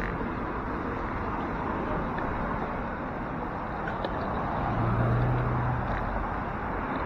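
City street traffic and riding noise picked up by a bicycle's handlebar camera, a steady rush with no clear events. About five seconds in, a low engine hum from a nearby vehicle grows louder for about a second.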